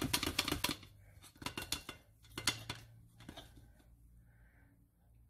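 Spatula clicking and scraping against metal cookware while chocolate topping is spread. There is a quick run of clicks in the first second, a few single clicks through the middle, and then it goes quiet.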